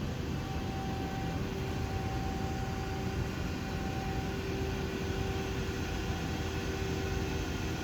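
Steady machinery hum with a constant rushing noise, and a faint steady whine that fades in and out.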